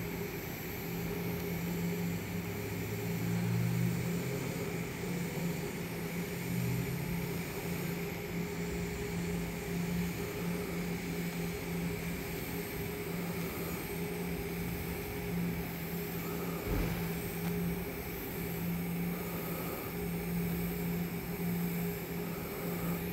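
A DC TIG welding arc from an Everlast Powertig 250EX burning steadily at about 175 amps while a bead is run on 304 stainless steel pipe: an even hiss with a steady low hum.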